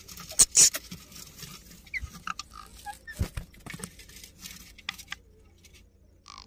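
Indian ringneck parakeets shuffling in a nest box: scratching and rustling on the sawdust bedding with many sharp clicks, a louder scrape about half a second in, and a few short squeaks.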